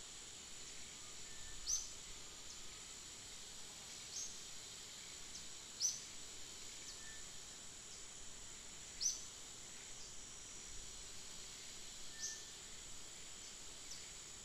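Outdoor insect drone, a steady high-pitched hum, with a short high chirp every two to three seconds over it.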